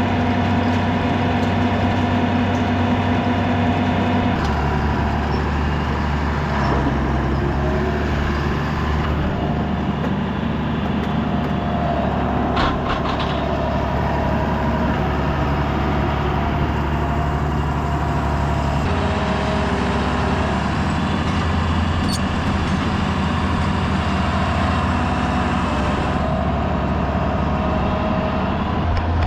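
Tractor engine running steadily under load, its pitch dropping about four seconds in and shifting again partway through, with a few brief clicks near the middle.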